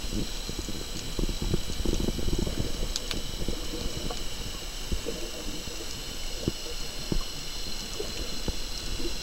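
Underwater sound picked up by a camera in its waterproof housing: irregular low rumbling and sloshing of water against the housing, with scattered sharp clicks and a faint steady high whine.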